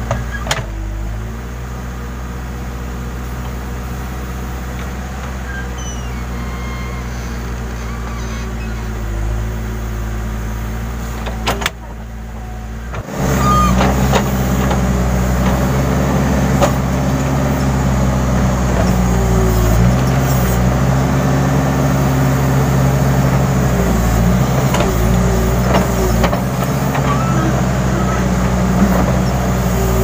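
Case N Series backhoe loader's diesel engine running steadily as the backhoe digs. It dips briefly about twelve seconds in, then runs louder and closer for the rest.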